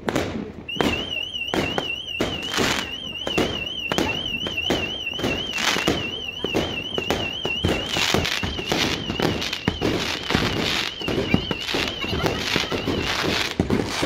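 Fireworks going off in quick succession: repeated bangs and crackling bursts. A high, fast-warbling tone sounds over them from about a second in until near the end.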